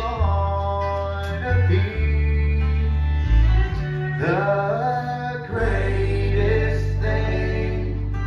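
Live bluegrass band playing: upright bass notes under strummed acoustic guitars and fiddle, with melody lines that slide in pitch.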